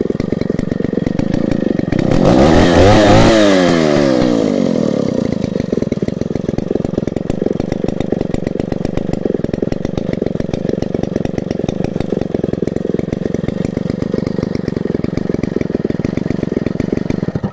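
Vintage Stihl Contra chainsaw's single-cylinder two-stroke engine running at idle, revving up briefly about two seconds in and settling back to a steady idle.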